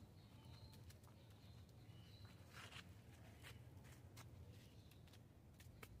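Near silence: faint outdoor room tone with a few light clicks and a brief soft rustle about two and a half seconds in.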